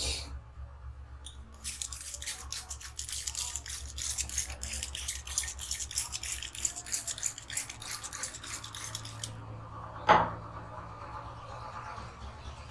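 Rapid scratchy rubbing and tapping of hands working over hair and scalp in a head massage, several strokes a second, stopping a little past nine seconds in. About ten seconds in, one sharp loud snap.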